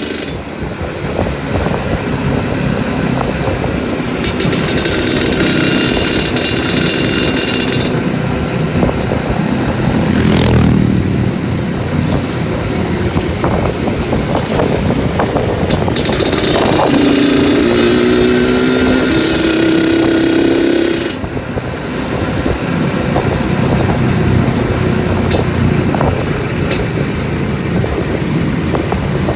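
Two-stroke trail motorcycle engine running and revving up and down while riding a rough off-road trail, with stretches of rushing noise over it.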